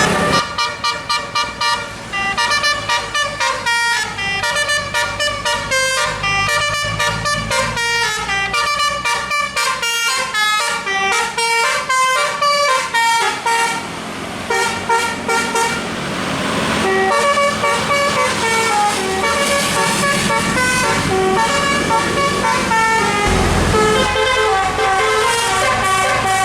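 Tourist bus's multi-note musical air horn (telolet) playing a fast tune of short stepped notes, pausing briefly past the middle before the tune resumes.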